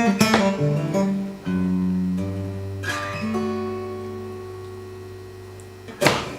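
Acoustic guitar playing: a few picked notes, then a closing chord left ringing and slowly fading. A short sharp sound about six seconds in cuts it off.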